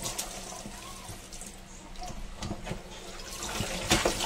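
Kitchen tap running into a stainless-steel sink while pea pods are rinsed by hand in a plastic colander. Near the end come a few louder clattering splashes as the wet colander is lifted out.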